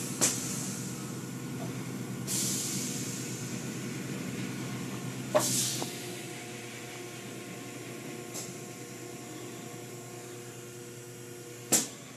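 Car wash machinery running with a steady mechanical hum. Short hissing bursts come over it several times, the loudest about halfway through and another near the end.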